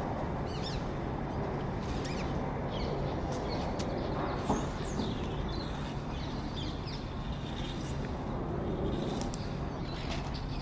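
Scattered short, high bird chirps over a steady low rumble, with one brief thud about halfway through.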